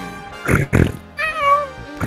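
Background music, with two short harsh noisy bursts about half a second in, then a single cat meow that rises and falls in pitch.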